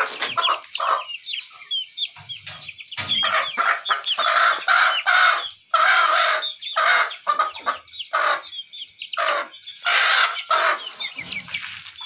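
Many chickens clucking and calling over one another, with crowing among them and short high chirps throughout.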